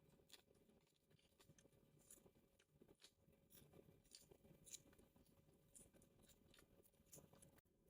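Faint chewing close to the microphone: scattered soft mouth clicks and small crunches of a person eating.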